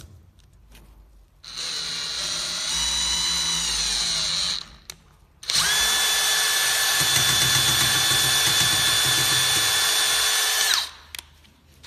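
Cordless drill driving a Sigma M8 rivet nut adapter. The drill spins up for about three seconds, its pitch dropping partway through as it slows under load while the M8 stainless steel rivet nut is drawn up tight, then stops. It then runs again steadily for about five seconds before cutting off.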